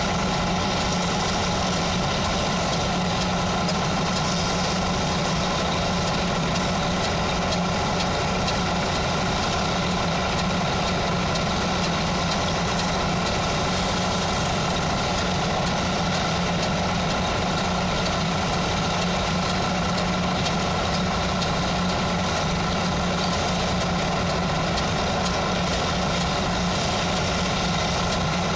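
Steady drone like a running engine, with an even, unbroken hiss over it throughout. This fits stick welding with a 4 mm electrode alongside running site machinery or an engine-driven welding generator.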